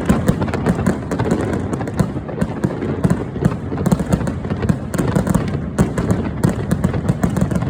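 Fireworks going off in rapid succession: a dense, continuous barrage of bangs and crackling pops.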